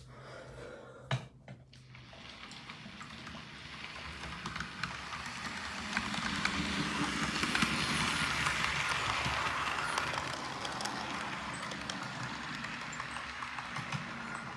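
A train running past the level crossing: a rumbling, clattering noise that builds over several seconds, is loudest about halfway through, then slowly fades.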